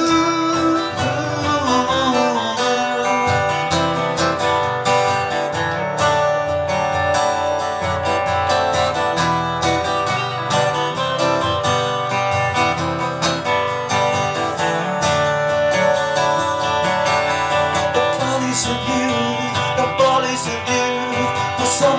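Two acoustic guitars strumming and picking an instrumental passage of an indie pop song, played live.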